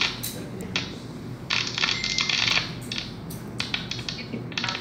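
Scattered sharp clicks and taps, with a crinkling rustle lasting about a second from about a second and a half in.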